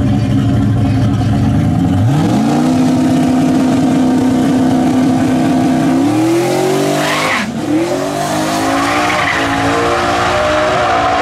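Car engine at full throttle: it revs up sharply about two seconds in and holds high revs, then climbs again. The pitch drops suddenly once, like a gear change, and climbs once more as the car accelerates hard, with a hiss of tire noise under it in the second half.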